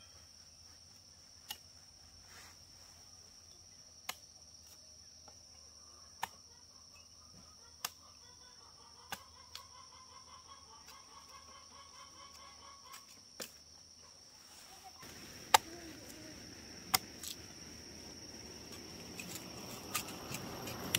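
A chicken clucking in a rippling run of calls, among sharp knocks every few seconds and a steady high-pitched whine; the background grows louder in the last few seconds.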